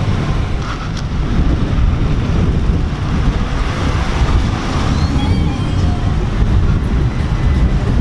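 Steady low rumble of car engines and traffic moving past.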